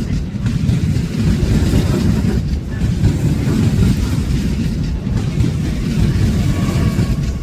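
Train running on the tracks with a steady low rumble.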